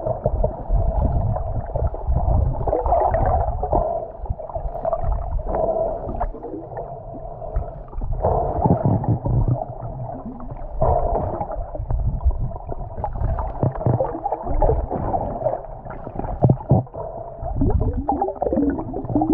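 Muffled underwater sound picked up through a camera housing: water churning and gurgling with knocks and surges as a freediver swims at the surface, over a steady low hum.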